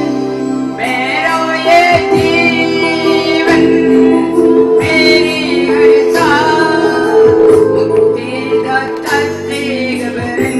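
Christian worship song: a sung melody over held instrumental chords.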